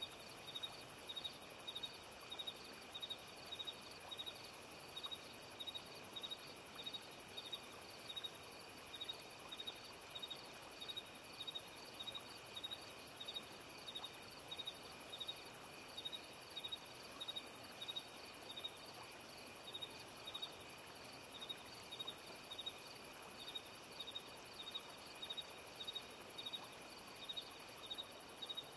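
Insect chirping, a high chirp repeating evenly about twice a second over a steady faint hiss, like a cricket at night.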